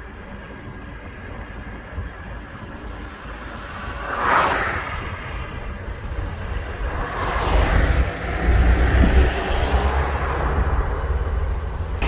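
Steady road noise of a moving car heard from inside the cabin: engine and tyres running on asphalt. There is a short whoosh about four seconds in, and a longer swell from about seven seconds as an oncoming car passes.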